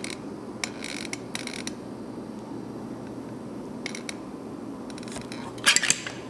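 Silicone caulk cartridge in a dispensing gun laying beads of silicone onto paper straws. A few short noises come from the gun and its nozzle, the last one near the end, over steady background noise.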